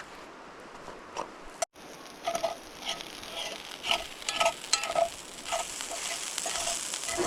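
Eggs sizzling in an oiled pan while a utensil scrapes and stirs them into scrambled eggs, with scraping strokes about twice a second. After a brief break about a second and a half in, the sizzle is louder.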